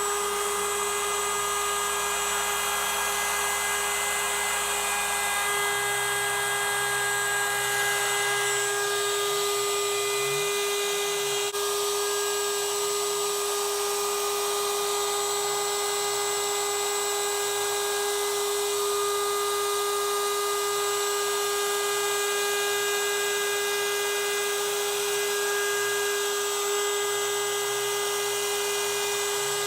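CNC router's spindle running with a steady high whine while its 90-degree V-bit cuts a beveled edge in wood. A lower hum underneath wavers up and down in pitch.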